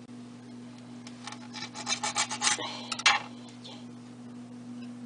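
A quick series of rasping, rubbing strokes on a cutting board, about five a second, lasting about two seconds and ending with a louder scrape a little after the three-second mark, as a prosciutto roll is worked on the board.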